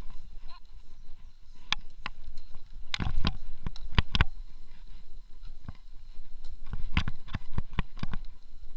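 Mountain bike ridden along a dirt trail: irregular sharp knocks and rattles from the bike as it goes over rough ground, bunched about three to four seconds in and again around seven seconds, over a steady low rumble.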